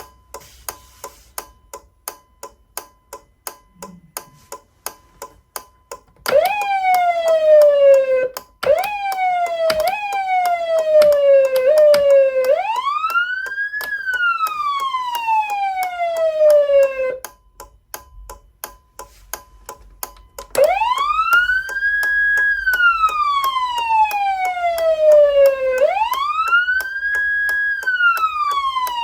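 Federal Signal Unitrol Touchmaster siren amplifier running its automatic siren tones: about six seconds in, a short sweep starts that repeatedly jumps up and slides down, then it changes to a slow wail rising and falling. The wail breaks off for about three seconds, then resumes. Throughout, the amplifier's indicator-flasher relay clicks steadily, about twice a second, like a turn signal.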